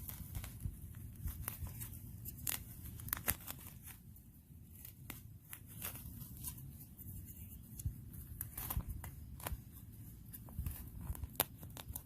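Handling noise of a package being opened: irregular tearing, crinkling and clicking sounds.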